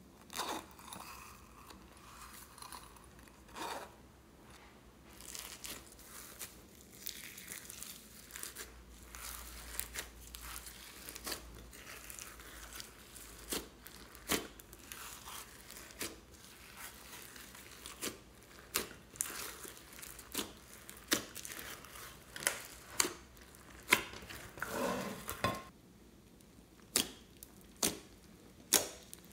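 Hands kneading and pressing a thick slime loaded with glitter and sequins, making sticky crackling and a run of sharp pops. The pops come about once a second, louder and more frequent in the second half.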